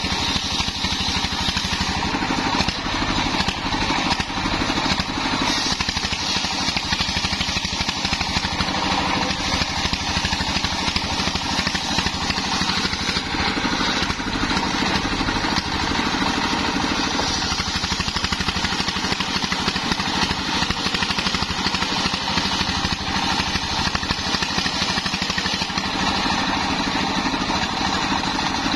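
Stationary single-cylinder diesel engine running steadily under load, belt-driving a homemade circular saw while the blade rips a waru log lengthwise.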